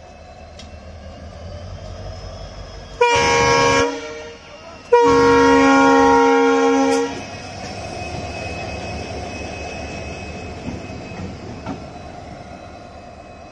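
WDP4D diesel locomotive sounding its horn twice as it runs past on its own: a short blast about three seconds in, then a longer one about two seconds later. Around the horn, its engine rumble and wheels on the rails grow louder as it comes close, with a couple of faint clicks near the end.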